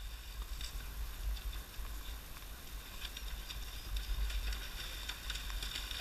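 Low, fluctuating rumble of wind or handling noise on a camera carried on a walking horse, with faint scattered ticks and rustles as the horses move along a grassy trail.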